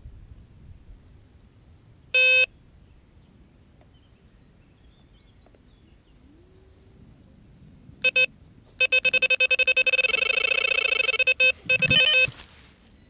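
Electronic carp bite alarm bleeping: a single bleep about two seconds in, two short bleeps around eight seconds, then a fast, nearly unbroken string of bleeps for about three seconds. That rapid string is the sign of a run, a carp taking the bait and pulling line off the reel.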